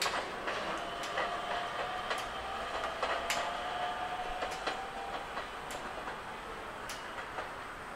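Nishitetsu Amagi Line electric train pulling away round a sharp curve: steady rail noise with wheel clatter, and a faint thin drawn-out tone that rises slightly from about one to five seconds in. Sharp clicks are scattered throughout.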